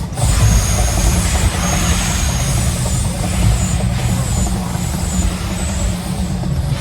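The gas-fired flame jets of the Mirage volcano attraction, a continuous loud roar and hiss of burning gas with a deep rumble underneath.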